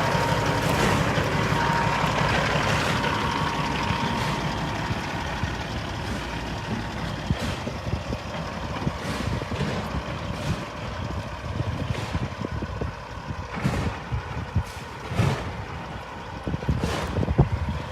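Heavy diesel construction machinery running, its rumble fading over the first half, with a faint steady whine in the first few seconds. In the second half, sharp knocks come about every one to two seconds.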